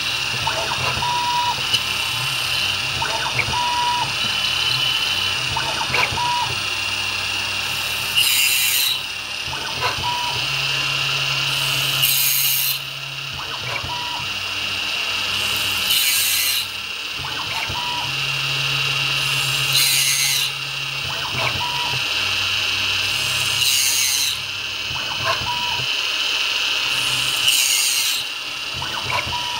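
CNC milling machine cutting a plastic part with an end mill: the spindle whines steadily while the cutter chews through the plastic, with a harsher rasping surge about every four seconds as it works around the circular cut. A low motor hum shifts in pitch as the table moves.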